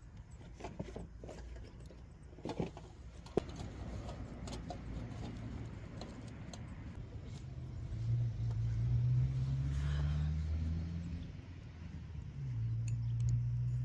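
A steady low engine drone comes in about eight seconds in, fades briefly near the end and returns. Before it come a few sharp clicks and knocks.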